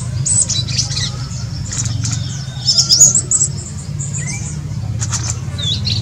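Male yellow-rumped flycatcher calling: a scatter of short, sharp high chirps, busiest about halfway through, over a steady low hum.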